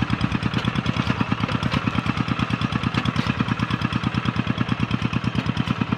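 Single-cylinder diesel engine of a rice-field hand tractor running steadily after a hand-crank start, with an even beat of about ten pulses a second.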